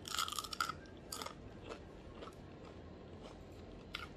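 A person biting into a crispy fried piece and chewing it. There is a loud crunch in the first second, another a moment later, then fainter crunches while chewing.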